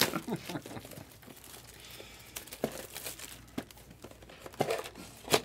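Baseball card packs and their box being handled: wrapper and cardboard rustling and crinkling, with several sharp crackles, the loudest near the end.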